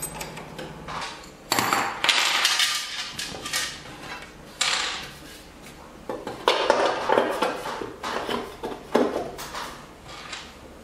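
Metal clinks and clatter of a wrench working at the cutterhead of a benchtop thickness planer, then knocks of the planer's plastic top cover being set back in place.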